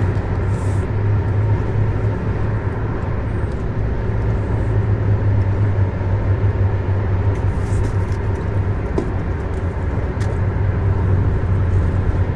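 A car driving along the road, heard from inside the cabin: a steady drone of engine and tyre noise.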